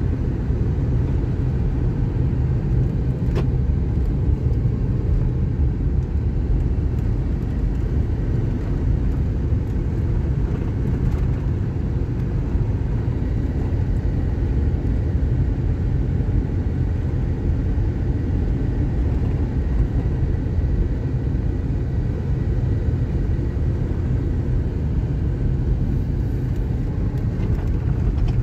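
Steady low rumble of a car driving along a paved road: engine and tyre noise at an even cruising pace.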